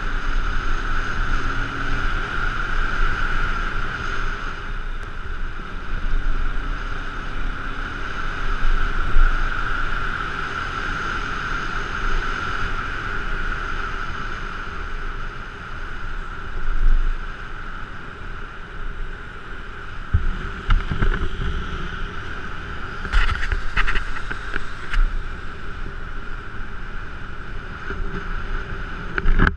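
G-max 150 motorcycle riding on a wet road, its engine running under wind rushing over the camera microphone, with a steady high whine throughout. A few short sharp knocks come about three quarters of the way through.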